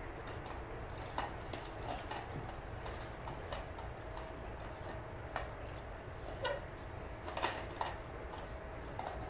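Scattered sharp clicks and ticks, about eight at irregular intervals, over a steady low outdoor rumble.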